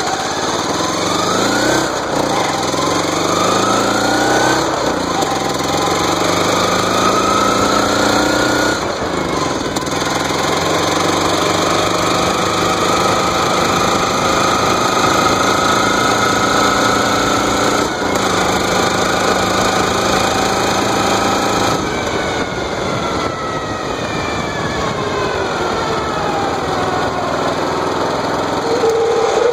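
Riding lawn mower engine running as the mower drives along, its pitch climbing and dropping back several times as it speeds up and eases off. The owner reports the mower's gears are misaligned.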